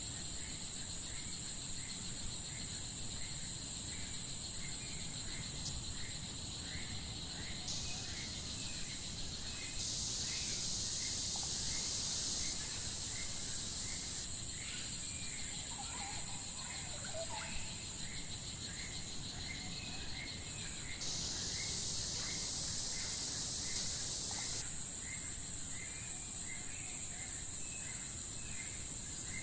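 Tropical rainforest insects make a steady high-pitched drone that swells twice, over a chirp repeating about twice a second. A brief lower call, such as a bird's, comes about halfway through.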